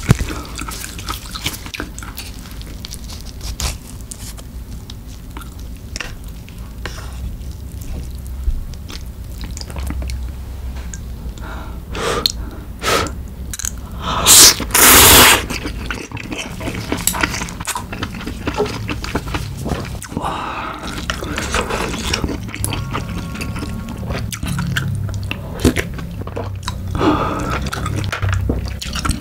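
Close-miked eating sounds of snow crab and ramen: chewing with small wet clicks, and a loud slurp of ramen noodles about halfway through. Near the end a wooden ladle scoops broth from the ramen tray.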